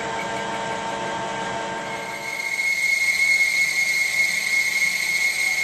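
Metal lathe running with a gear ring blank spinning in its chuck while the tool faces it down to depth. About two seconds in, a high steady ring from the cutting tool comes in and the sound grows louder.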